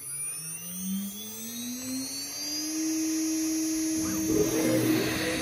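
A PwnCNC router spindle on a CNC machine spinning up, its whine rising in pitch over about three seconds and then holding steady at speed. A brief, louder rough noise comes about four seconds in.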